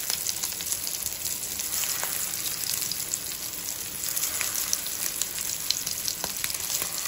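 Shami kabab patties of ground mince shallow-frying in hot oil in a pan, while more patties are laid into the oil: a steady sizzle with scattered sharp pops and crackles.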